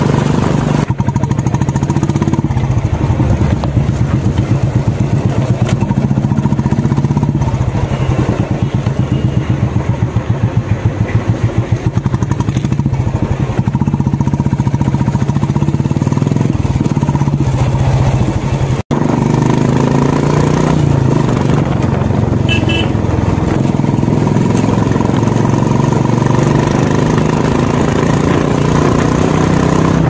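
Royal Enfield Classic 350's single-cylinder engine running through an aftermarket Indori silencer on a moving motorcycle, heard close to the silencer tip: a steady string of deep exhaust thumps, the 'dug dug' beat that this silencer is fitted for. The sound cuts out for an instant about two-thirds of the way through, then carries on.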